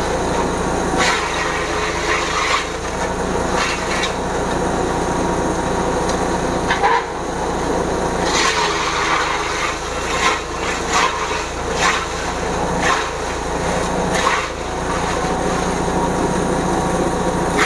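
Engine-driven grass chopper (chaff cutter) running steadily while sugarcane stalks are fed through it. Its blades chop the hard stalks with repeated, irregular crunching bursts over the steady engine hum, at a relaxed, unforced engine setting.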